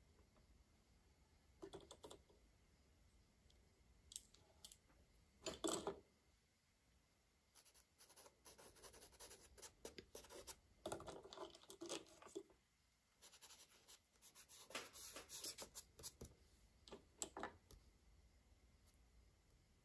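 Colour crayon scratching on paper in short, intermittent strokes, with a few light clicks and one brief knock about six seconds in.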